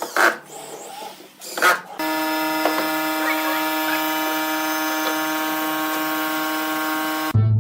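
Two short scraping noises, then a woodworking power tool's motor starts abruptly and runs at a steady, unchanging whine for about five seconds before cutting off sharply.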